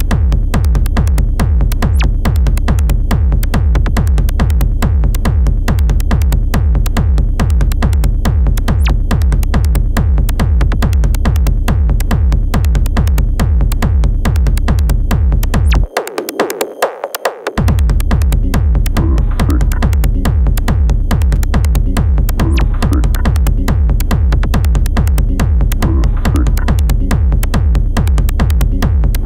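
Industrial techno: a fast, even drum-machine beat over heavy bass. About halfway through, the beat and bass drop out for about a second and a half, then come back with extra synth sounds on top.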